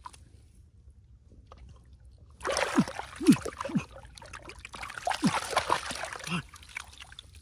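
Water splashing and sloshing, as when hands churn shallow water while groping for fish. It starts about two and a half seconds in and lasts about four seconds, with a few short falling gulps.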